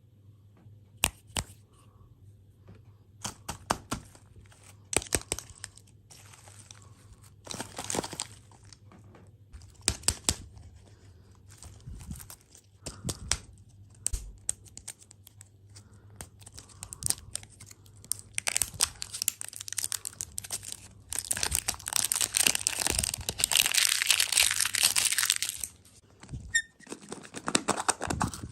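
Packaging crinkling and tearing as snack and candy wrappers are handled and opened, in many short crackles and rustles, with a long stretch of continuous crinkling in the last third.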